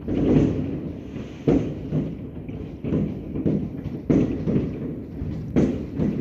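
Fireworks exploding over the city: about six sharp bangs at irregular intervals, each trailing off in a rumble, over a continuous low rumble of more distant fireworks.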